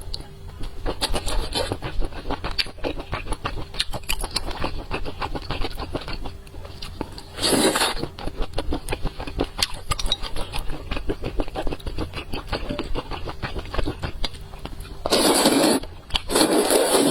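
Close-up eating sounds: continuous crackling chewing with many small clicks, broken by three louder crunching spells of about a second each, one midway and two near the end.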